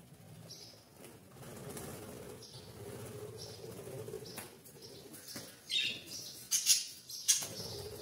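Budgerigars chirping in short high calls, with a few loud flurries of wing flaps about six to seven seconds in as budgies take flight.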